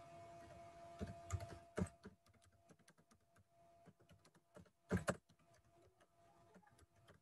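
Faint typing on a computer keyboard: irregular key clicks, with a few louder taps about a second in and again about five seconds in.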